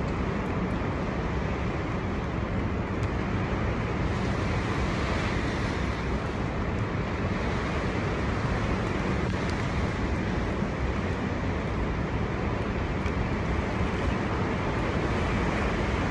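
Storm wind blowing hard and steadily, with low rumbling wind buffeting on the microphone and a few faint ticks.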